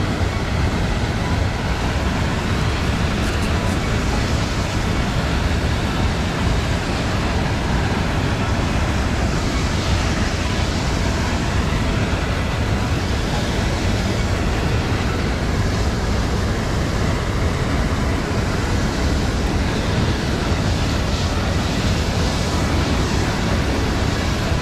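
Steady, loud rush of turbulent whitewater where an outflow boils up into a lake, with a strong low rumble under it.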